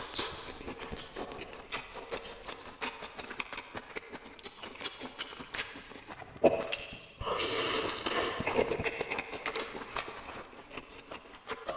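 Close-up eating sounds: wet clicks and smacks of chewing throughout. About six and a half seconds in comes a sudden loud bite into a dumpling, then about two seconds of slurping.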